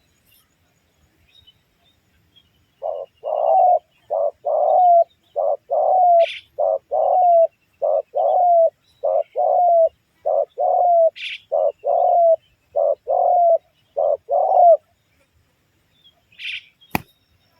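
Spotted dove cooing in a fast run of short coos, paired short and long, for about twelve seconds before stopping. A smaller bird gives three brief high chirps, and a sharp click comes near the end.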